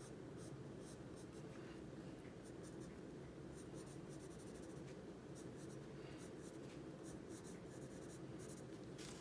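Prismacolor coloured pencil scratching lightly on paper as the hair is shaded: soft short strokes in irregular quick runs. A faint steady low hum lies underneath.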